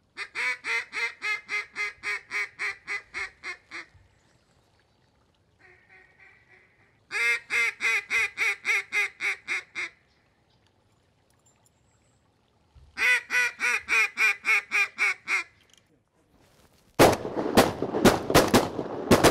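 Three runs of rapid, evenly spaced duck quacks, about four a second and three seconds each, in the pattern of a mallard hen's greeting call, with a faint short chatter between the first two runs. Near the end comes a quick volley of loud shotgun blasts.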